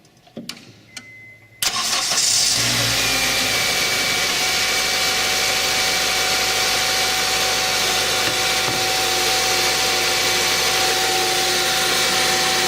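A couple of light clicks, then about two seconds in the Acura RSX's 2.0-litre four-cylinder engine starts with a short flare and settles into a steady idle.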